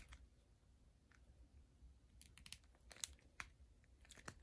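Faint clicks and handling of a plastic McFarlane DC Multiverse Joker action figure as its head is turned on a stiff neck joint, with a few small clicks in the second half.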